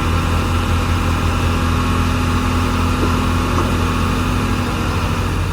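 Heavy diesel engine running steadily with a deep, even hum.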